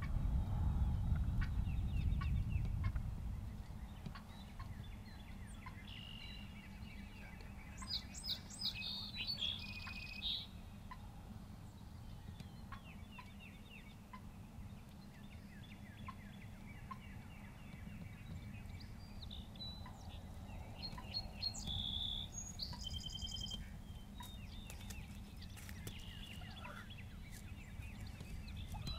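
Wild turkey gobblers gobbling in short rattling bursts, about a third of the way in and again twice later, over a steady low rumble that is heaviest in the first few seconds.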